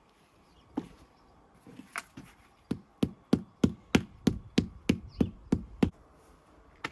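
Repeated hammering: two single knocks, then a steady run of about eleven blows at roughly three a second, stopping about a second before the end, with one last knock.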